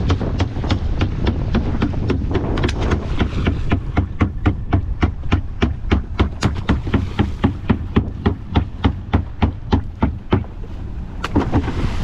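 Fast, even knocking, about four hard knocks a second, over steady wind noise on the microphone; the knocking stops shortly before the end.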